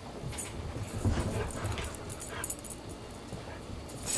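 Dogs playing: scattered thumps and scuffling, loudest about a second in, with a few short whimpers.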